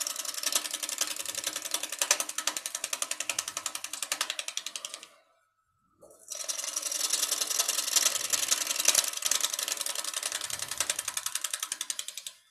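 Bowl gouge cutting the outside of a spinning cedar bowl blank on a wood lathe, a scraping cut with a rapid, even ticking through it. Two passes, broken by a short silent gap about halfway through.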